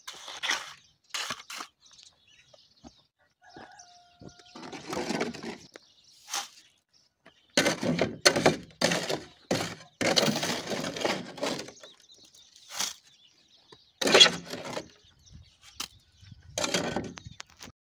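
Irregular gritty scrapes and crunches of stony soil and wet concrete mix, in short strokes of under a second each, coming thicker and louder in the second half.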